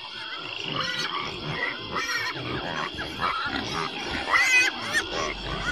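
A night chorus of frogs and insects, with louder animal calls over it. The calls are strongest about two seconds in and again just past four seconds.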